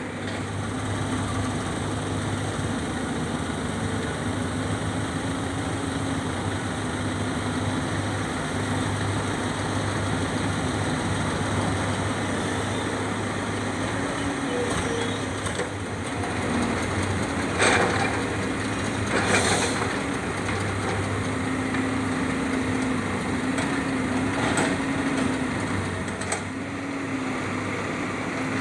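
Heavy diesel engines of a log-loading excavator and logging trucks running steadily. A little past halfway come two brief, sharp, loud noises about a second and a half apart.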